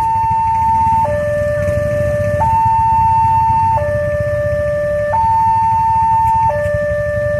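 Electronic railway level-crossing warning siren sounding a two-tone hi-lo pattern. It switches between a higher and a lower steady tone, each held about a second and a third, over a low rumble.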